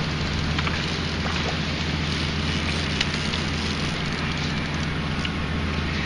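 Steady rushing outdoor noise with a low steady hum underneath and a few faint clicks.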